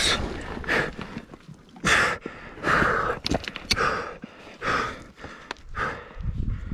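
A person panting hard, loud heavy breaths roughly once a second close to the microphone, with a few sharp clicks near the middle.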